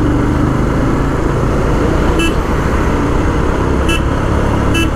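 Royal Enfield Himalayan's single-cylinder engine running steadily under way, with road and wind rush. Three brief high-pitched toots come about two, four and five seconds in.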